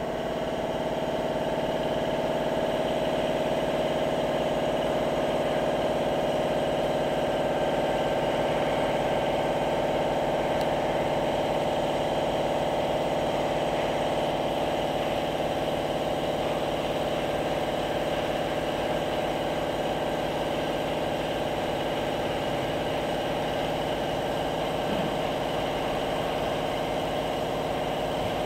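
Automatic longitudinal seam welding machine running a straight weld: the welding arc and machine give a steady, even hum with a buzz.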